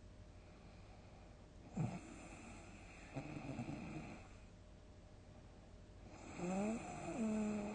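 A sleeping person snoring loudly: a short sharp snort about two seconds in, a rattling snore a second later, and a louder, longer snore near the end whose pitch rises and bends.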